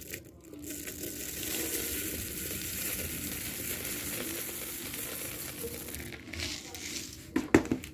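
Old-fashioned rolled oats being poured, a steady dry rustling hiss of falling flakes, with a few sharp knocks near the end.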